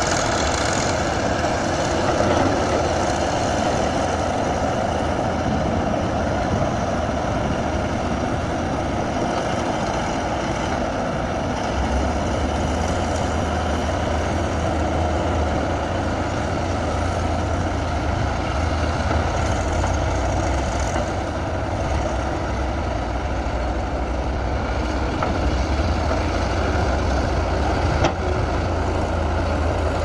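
Komatsu D155A bulldozer's diesel engine running steadily under work, with a deeper low rumble coming in about twelve seconds in.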